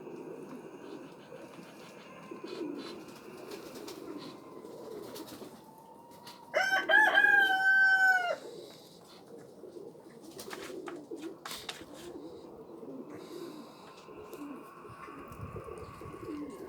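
Pigeons cooing in a steady low murmur. A little past the middle, a loud drawn-out call of about two seconds cuts across it, falling away at the end. A few short clicks follow.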